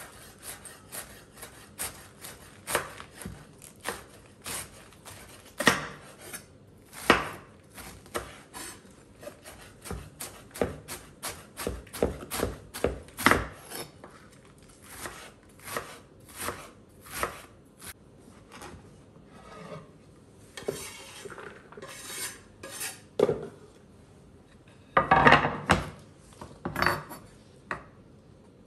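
Chef's knife slicing lettuce on a wooden cutting board: irregular strokes, each a crunch of leaves ending in a knock of the blade on the board. Near the end there is a louder run of cuts, as the knife moves on to spring onions.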